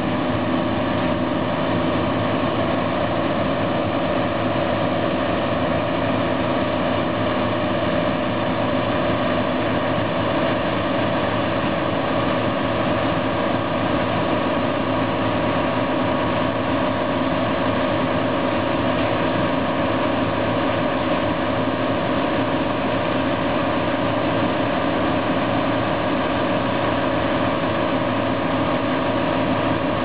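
Claas Lexion 450 combine harvester running steadily at work, harvesting maize while its unloading auger discharges grain into a trailer: a dense, even machine drone with several steady hum tones and no change in pace.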